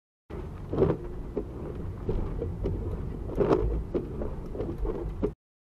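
Road and wind noise inside a moving car: a steady low rumble with a couple of louder swells, about a second in and again around three and a half seconds. It cuts off abruptly near the end.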